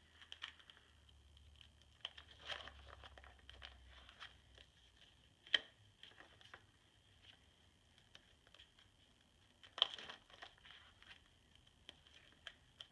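Faint crinkling and rustling of plastic page protectors in a ring-bound scrapbook album as pages are turned, with a couple of sharper clicks, one about five and a half seconds in and a louder one near ten seconds.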